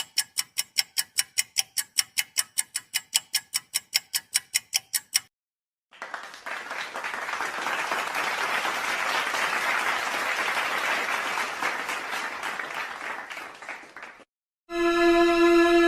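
Rapid, evenly spaced ticking sound effect, about five or six ticks a second for about five seconds. After a brief gap comes a crowd applauding for about eight seconds. A steady held note begins near the end.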